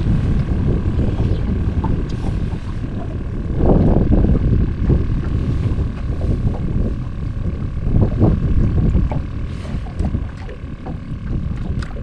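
Wind buffeting the microphone: a heavy low rumble that swells and fades in gusts.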